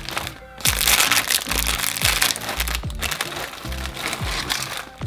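Foil wrappers crinkling as they are handled, strongest from about a second in for a couple of seconds, over background music with a steady beat.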